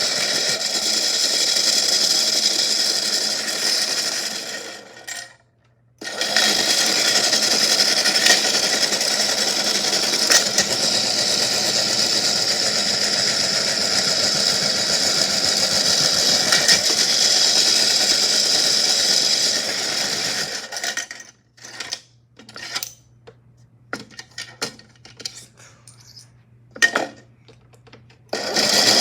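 Small washing machine running with rocks and shells rattling and clinking in its drum, a steady motor whir studded with clicks. It cuts out briefly about five seconds in, runs again, then stops about twenty seconds in, leaving only scattered knocks and clatters.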